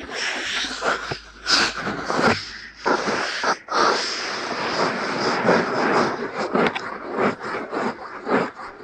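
Ear-cleaning ASMR scratching and rubbing right against the microphone's ear: a continuous rustling scrape broken by many small clicks and brief pauses.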